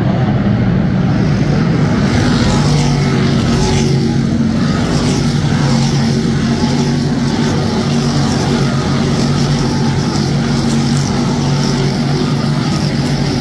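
A field of dirt modified race cars racing around a dirt oval, their V8 engines running loud and steady as the pack passes close by.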